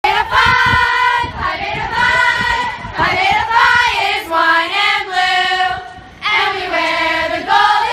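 A song with a high singing voice holding long, sliding notes.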